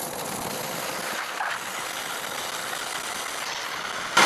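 Hart 2000 psi electric pressure washer, an induction motor driving an axial pump, running steadily, its factory nozzle spraying a jet of water into a plastic bucket during a flow test. A brief louder burst comes right at the end.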